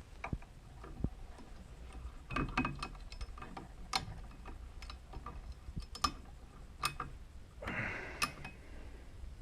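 Irregular mechanical clicks and ticks, some in quick clusters, with a short rustle near the end.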